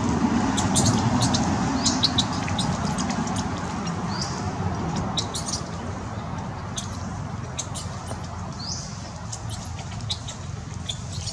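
Scattered short, high chirps of small birds over a steady background noise, which is louder in the first few seconds and then eases.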